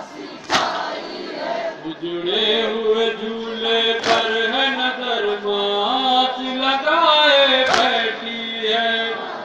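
Devotional chanting over a loudspeaker system, in long held notes that step up and down in pitch. Three sharp, loud knocks cut through it, about three and a half seconds apart.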